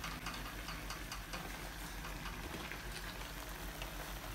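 Chicken and tomato pieces sizzling and bubbling in a karahi over a high flame, simmering in the water they have released as it cooks off, with a steady crackle and faint ticks as a wooden spatula stirs them.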